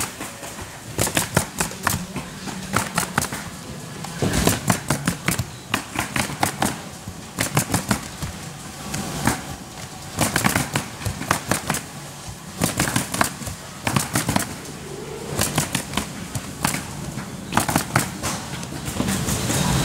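Pneumatic coil roofing nailer driving nails into asphalt shingles. It fires in quick bursts of several sharp shots, with short pauses between bursts as each new shingle is set.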